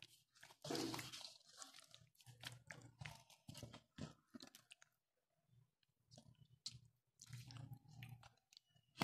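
Faint, irregular wet squishing as a bare hand kneads chicken pieces in a thick spiced marinade in a stainless steel bowl, with a short pause a little past the middle.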